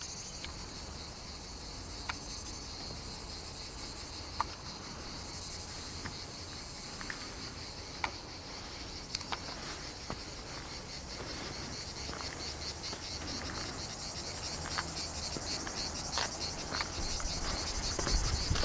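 A steady, high-pitched chorus of summer insects with a fast pulsing rhythm that grows louder near the end, with a few faint clicks scattered through it.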